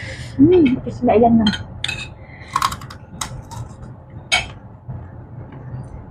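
A metal spoon clinking and scraping on a ceramic plate: several separate sharp clinks spread over a few seconds. A short hummed vocal sound comes just before the first clink.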